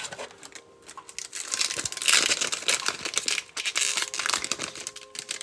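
Plastic trading-card pack wrapper crinkling as it is handled and opened, starting quietly and getting louder about two seconds in.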